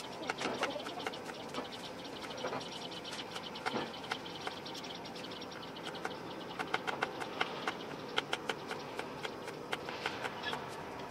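Knife slicing shallots on a wooden chopping block: a run of quick, irregular light taps of the blade through the bulbs onto the wood, coming thickest a little past the middle.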